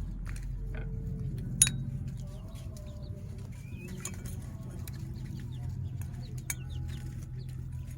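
Chickens clucking, with scattered short calls over a steady low hum, and a few sharp clicks, the loudest about one and a half seconds in.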